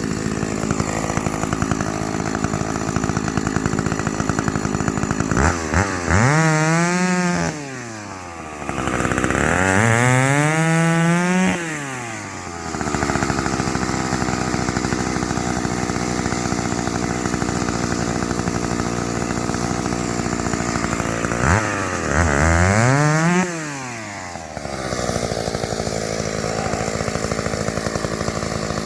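Stihl 031AV two-stroke chainsaw running steadily, revved up three times with the pitch climbing and then falling back.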